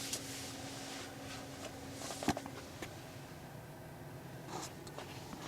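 Quiet car cabin: a faint steady hum stops with a sharp click about two seconds in, followed by a few faint clicks and rustles.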